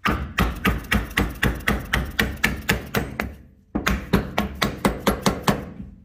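Rapid, even hammer taps, about five a second, with a brief break just past halfway, driving a plastic stand-in for the wheel bearing into the machined bore of a front hub carrier.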